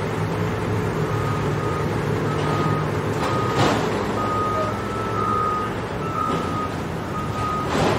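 A truck's reversing alarm beeping at a single high pitch over the low, steady running of a heavy vehicle's engine, with two brief louder noises, one about halfway and one near the end.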